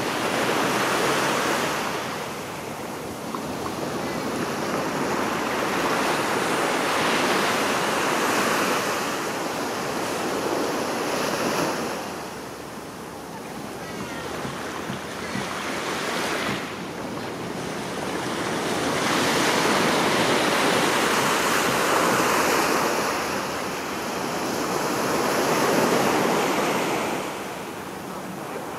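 Ocean surf: small waves breaking and washing up a sandy beach, the wash swelling and fading every few seconds, with some wind on the microphone.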